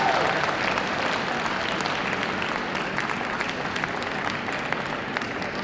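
Audience applauding, a dense patter of many hands clapping at once that slowly fades.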